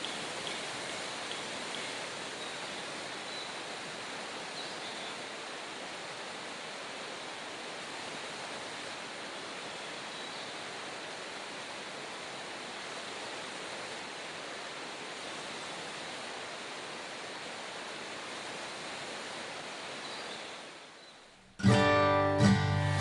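Steady rush of a river's flowing water that fades out about 21 seconds in. Strummed acoustic guitar music starts near the end.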